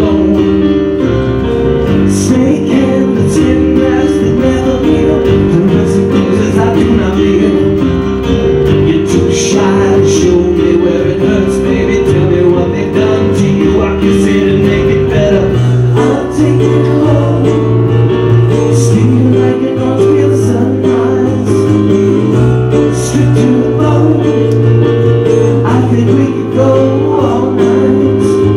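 Live acoustic band music: acoustic guitars played over keyboard, with male singing. About halfway through, a deeper sustained low note comes in beneath the guitars.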